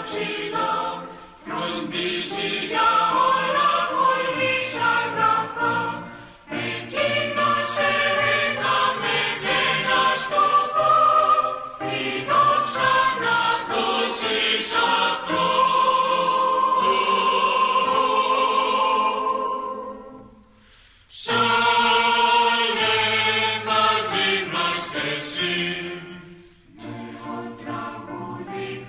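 Choir singing, phrase after phrase, with short breaks between phrases and a longer pause about two-thirds of the way through.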